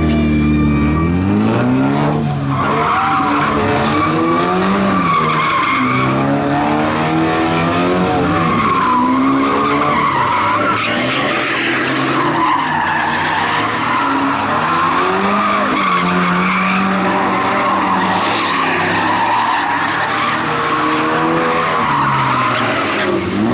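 A vehicle doing donuts: the engine revs rising and falling again and again under a continuous tyre screech as the tyres spin on the pavement.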